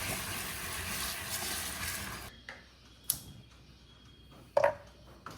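Kitchen cooking sounds: a steady sizzling hiss that cuts off abruptly a little over two seconds in, then a sharp click and, about a second and a half later, a louder knock.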